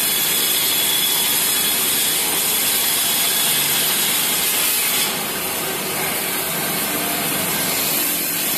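Vertical band saw running and cutting through a heavy workpiece fed across its table by hand: a steady, loud sawing noise that drops slightly in level about five seconds in.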